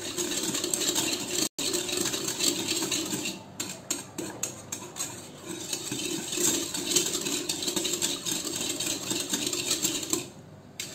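Wire whisk beating cornflour and sugar into water in a steel pot: a fast, continuous scraping and rattling of the wires against the metal as the cornflour is dissolved so no lumps form. It eases off near the end.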